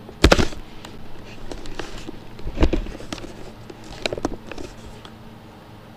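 Computer keyboard keys struck several times: a loud knock about a third of a second in, another around two and a half seconds, a cluster around four seconds, and lighter taps in between, arrow keys being pressed in a console.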